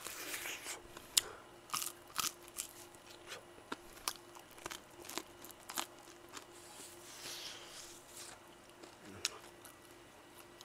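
Crispy fried chicken being bitten and chewed close to the microphone: irregular sharp crunches and crackles of the fried batter between softer chewing.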